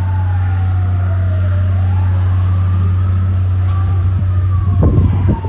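Fire engine siren wailing, its pitch sliding slowly down and back up about every three seconds, over a steady low rumble. A short burst of rough noise comes near the end.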